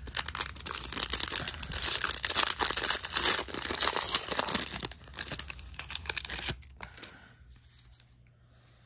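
Foil wrapper of a 2021 Bowman Draft jumbo card pack being torn open and crinkled in the hands. The loud crackling lasts about five seconds, then weakens and dies away about seven seconds in.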